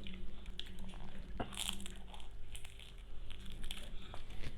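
Chewing a crispy fried sigara börek (cheese-filled pastry roll), with a few crunches and crackles.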